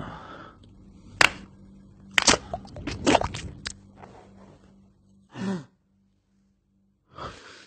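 A man's breathy gasps and noises, with several sharp clicks and knocks; the two loudest knocks come about a second and two seconds in. A short pitched vocal sound about five and a half seconds in is followed by a moment of silence.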